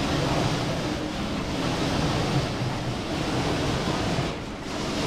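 Ore-crushing machine running with a loud, steady mechanical noise and a low hum, dipping briefly about four and a half seconds in.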